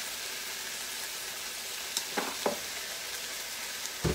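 Cherry tomatoes and onions frying in a stainless steel pan: a steady sizzling hiss, with a couple of short knocks a little after two seconds in and a louder knock near the end.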